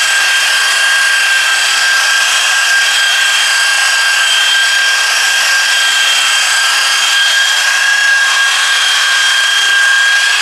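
Electric rotary buffer set at 1800 RPM, running a double-faced wool pad with rubbing compound over clear coat color-sanded to 3000 grit. A steady high-pitched motor whine over the constant hiss of the pad on the paint.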